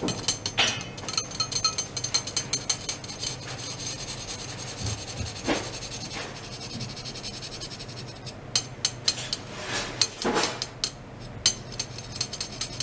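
Stainless steel rods driven by ultrasonic probes, clicking and rasping irregularly where they touch, over faint steady high tones. The clicks come thick at first, thin out in the middle, and bunch again near the end.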